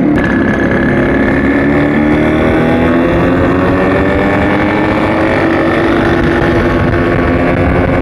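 Yamaha RX100's two-stroke single-cylinder engine running while the motorcycle is ridden, its pitch sinking slowly and steadily.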